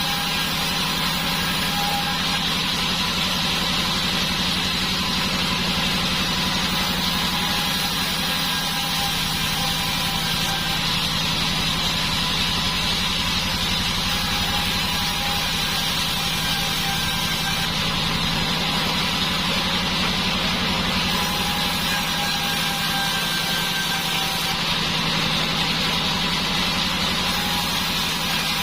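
Sawmill band saw running steadily, a constant machine drone with faint thin whines that come and go.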